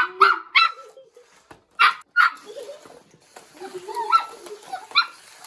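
Small dog barking in short, sharp yips, five in the first two and a half seconds, then softer whimpering sounds.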